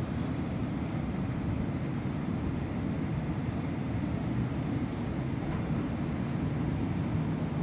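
A steady low rumble of outdoor background noise with a few faint ticks.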